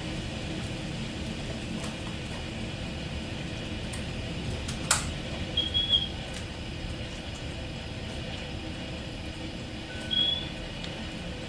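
Steady low rumbling noise of a heavy rainstorm. One sharp click comes about halfway through, with a few brief high squeaks soon after and another near the end.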